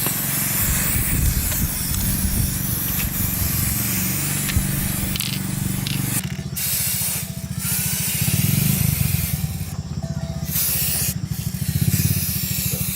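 A loud spray-like hiss of air or fluid, broken off briefly several times in the second half, over a steady low machine rumble that runs throughout.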